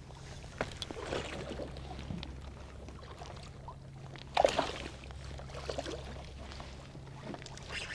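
Water sloshing and trickling against a small fishing boat, over a steady low hum, with one brief louder sound about halfway through.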